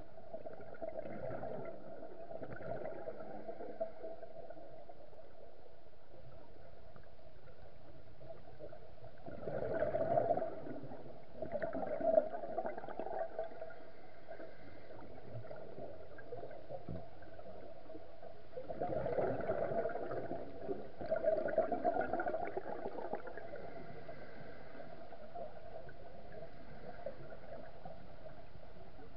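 Underwater recording: a steady dull hum, broken by a scuba diver's exhaled bubbles gurgling out of the regulator. The bubbles come in four bursts, in two pairs, about ten and about twenty seconds in.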